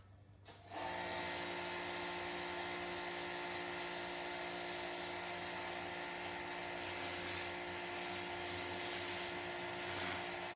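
Pressure washer starting up about half a second in after a short click, then running steadily: a loud, even hiss of spray over a steady machine hum, cutting off abruptly at the end.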